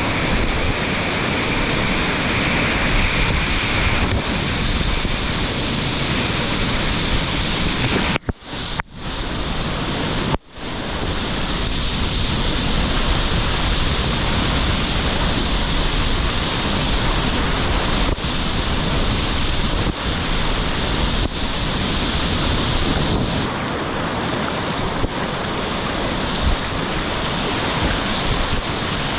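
Rushing whitewater of a river rapid with wind buffeting the microphone, a steady dense roar that dips out sharply for a moment twice, about eight and ten seconds in.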